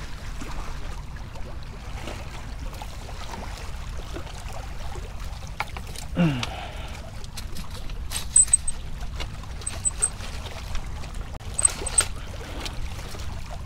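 Water sloshing and splashing against granite jetty rocks as a black drum is scooped up in a landing net, with a steady low rumble underneath. Scattered small knocks and splashes run through it.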